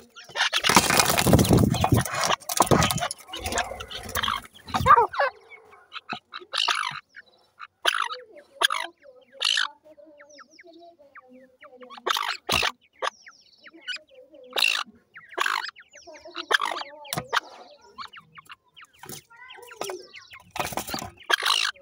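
Francolin (teetar) chicks giving short calls, one at a time, every second or so with short gaps. A loud rustling, scraping noise fills the first few seconds.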